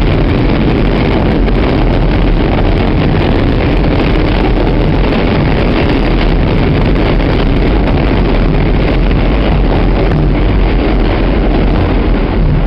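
New York City subway train running at speed through a tunnel, heard from inside the car: a loud, steady rumble and roar of wheels on rails.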